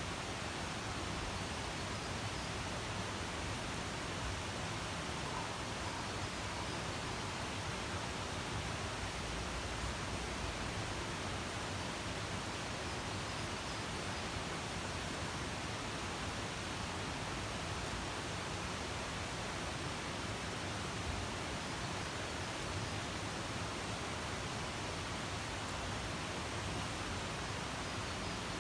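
Steady, even outdoor hiss with no distinct events: background ambience at the campsite.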